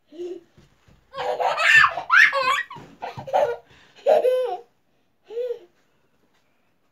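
A child laughing in several high-pitched bursts, loudest from about one to three seconds in, with a last short burst near the end.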